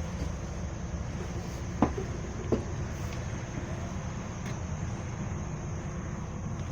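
Volvo B9TL double-decker bus running, a steady low engine and road rumble. Two sharp knocks come close together about two seconds in.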